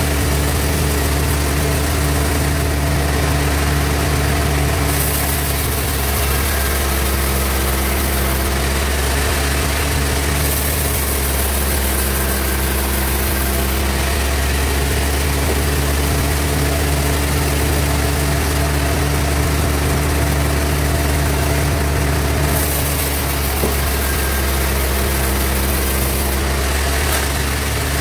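Sawmill bandsaw machine running steadily with a deep, even hum. A high hiss rises and falls away several times.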